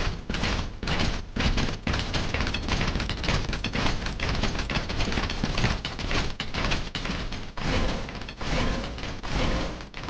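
Many metallic clanks and thuds in quick, uneven succession: the stomping legs of a swarm of small spider-legged robots marching forward.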